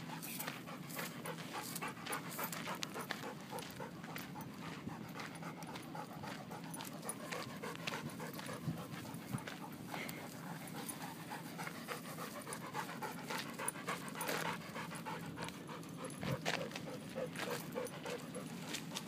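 Dogs panting hard close by, with footsteps on a gravel path.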